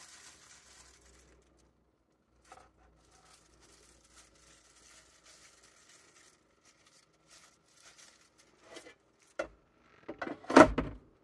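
Soft rustling and small clicks of gloved hands handling breaded fish pieces and setting them in an air fryer basket, then near the end a few knocks and a loud clatter of about a second as the basket is pushed back into the air fryer.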